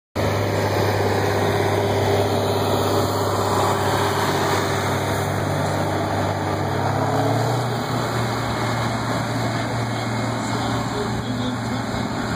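Diesel engines running steadily with a low drone, whose pitch steps up slightly about seven or eight seconds in.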